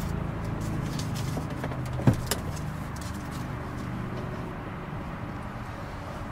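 A steady low hum, with faint crackling as the white backing strips are peeled off the Velcro adhesive, and a sharp click with a quick falling squeak about two seconds in.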